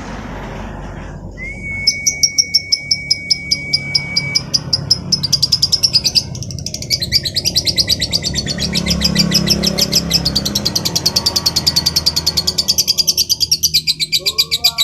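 Female lovebird singing a long unbroken chattering song of rapid high chirps, about five a second and quickening to a denser run after about five seconds. This is the continuous song that keepers call "bocor" or "gacor". A steady high whistle lasts about three seconds near the start.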